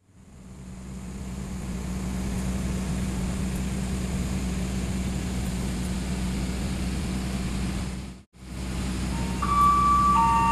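Steady low hum of a diesel train's engine standing at a station platform, fading in over the first couple of seconds and cutting out briefly about eight seconds in. Near the end a station chime begins, a melody of clear held notes.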